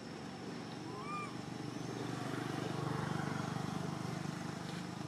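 Motor vehicle passing, a low rumble that swells to a peak about three seconds in and then fades. A single short squeak-like chirp is heard about a second in.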